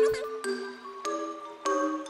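Background music: a few struck notes, about three, each ringing on, with no bass line.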